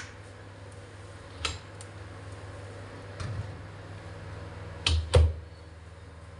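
Sharp clicks and knocks at a gas stove where oil is heating in a wok, over a steady low hum. There are four clicks, spread out, and the two loudest, with a dull thud in them, come close together about five seconds in.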